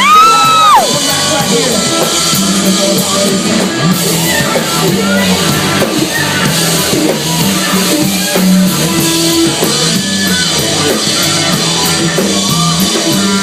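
Live rock band playing loud amplified music with drums, electric guitar and bass. A loud, high held shout of "woo" rings out at the start and drops away within a second.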